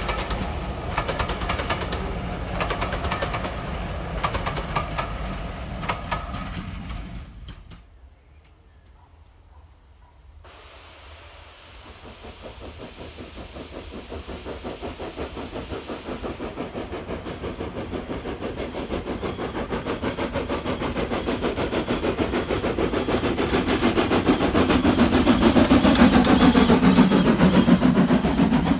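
A departing passenger train's rumble fades away. Then a steam locomotive approaches under power, its exhaust chuffing in a steady rhythm that grows louder, and near the end its coaches rumble and clatter past close by.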